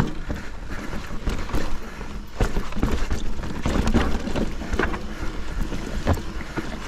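Hardtail mountain bike ridden down a rough trail: wind rumbles on the camera microphone while the bike knocks and rattles over roots and rocks, with sharper knocks every second or so.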